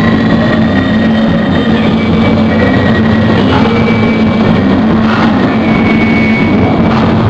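Loud, unbroken wall of amplified noise from a live noise-music performance. A steady low drone runs underneath, and thin high whistling tones drift in and out above it.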